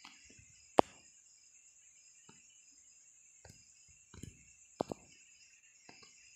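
Faint steady high insect chirring in the background, with a few sharp knocks: the loudest just under a second in, two more around four to five seconds in.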